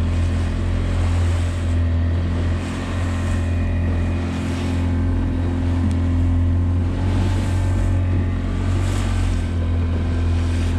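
Small open fishing boat's motor running steadily with a low hum while under way, with water rushing along the hull in swells every second or two.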